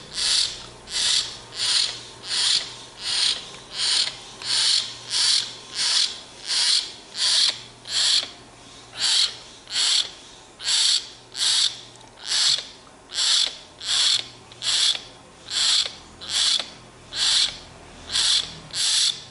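Young hill myna giving short, high begging calls over and over, evenly, about one and a half times a second, while it wants to be fed bread.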